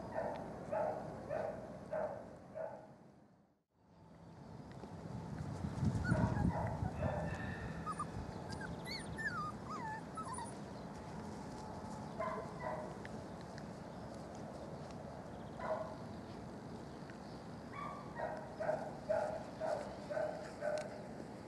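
Young puppies yipping in runs of short, high little barks, a few seconds of quick yips at a time, with single yips between. The sound dips out briefly early on, and a brief low rumble is the loudest moment a few seconds later.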